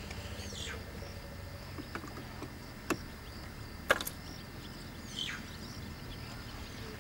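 Quiet bush ambience: a steady low hum with two descending whistled calls, likely birds, about half a second and five seconds in. Two sharp clicks about three and four seconds in.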